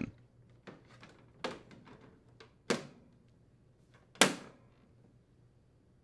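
Plastic front grille of a Frigidaire window air conditioner being pressed onto the cabinet and snapped into place. A few light clicks and knocks come first, then a louder snap, and about a second and a half later a sharper, loudest snap as the grille's tabs lock in.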